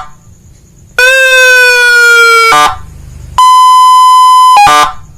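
Aftermarket six-tone electronic horn module sounding loudly through its horn speaker. It plays a tone that slides slightly down in pitch for about a second and a half, then, after a short gap, a steady higher tone for just over a second. Each tone ends with a brief blip.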